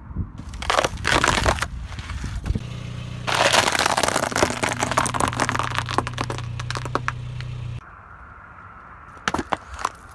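Car tyre crushing things on asphalt: a polystyrene foam tray cracking and creaking in the first couple of seconds, then a plastic tub of dry pasta crackling and snapping in a long dense run over the car's steady engine hum. Near the end, a few sharp cracks as a small plastic object is crushed.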